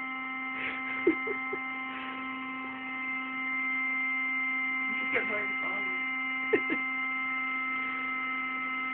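Electric air pump running with a steady hum as it inflates an airbed, a little louder from about three and a half seconds in. A few brief sharp sounds cut in around the first second and twice later.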